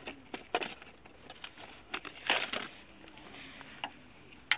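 Handling noises from an angler dealing with a freshly caught roach at the keepnet: a scatter of short rustles and taps, the loudest cluster about halfway through and a sharp click near the end.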